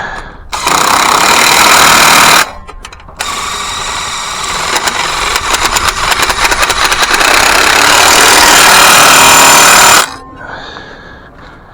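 Power wrench running in two loud bursts, tightening 14 mm bolts; the second, longer run has rapid hammering clicks and grows louder toward its end before stopping abruptly.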